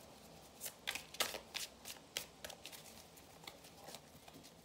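A tarot deck being shuffled by hand: quick papery snaps and swishes of cards sliding against each other. They come thick for the first two and a half seconds, then more sparsely.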